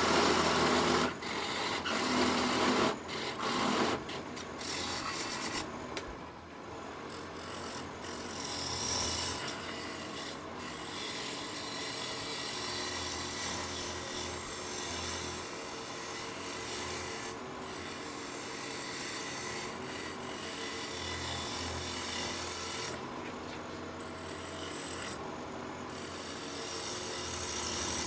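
Turning tools cutting a spinning locust blank on a wood lathe, over the low hum of the running lathe. The cut is loudest in the first four seconds, with a parting tool cleaning up the tenon, then goes on steadier and quieter.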